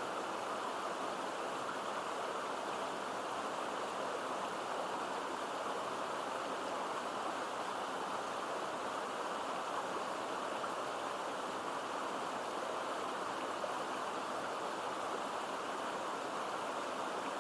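Mountain stream babbling as it runs into a pool, a steady rush of water that does not change.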